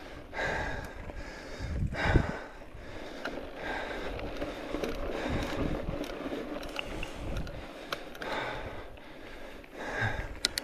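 A person breathing hard, a loud breath every second or two, over gusty rumbling noise on the microphone, with a few sharp clicks near the end.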